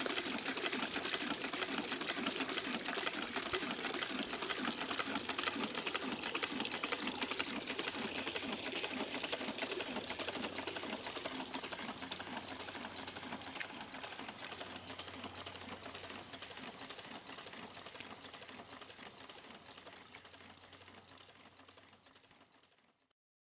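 4-inch Rider compression hot air engine running with a quick, steady mechanical clatter, its pump sending water splashing into a bucket. The sound gradually fades away over the last half and stops just before the end.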